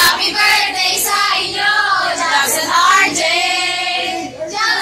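High, young-sounding voices singing a song, with held notes and little or no instrumental backing.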